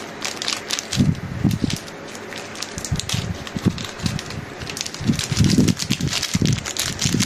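Hands fiddling with small gold-plated butterfly earrings close to the microphone: an irregular crackling rustle of many small clicks, with soft low thuds.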